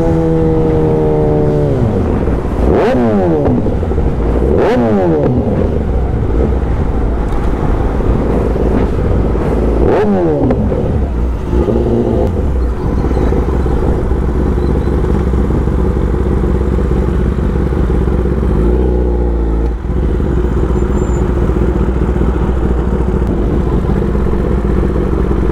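Kawasaki Ninja ZX-10R inline-four motorcycle engine accelerating hard, its note rising and then dropping sharply a few times in the first ten seconds. It then runs steadily at speed, with a low wind rumble underneath.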